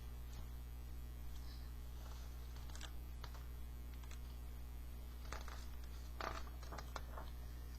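Steady low electrical hum with a few faint, short clicks and soft rustles scattered through.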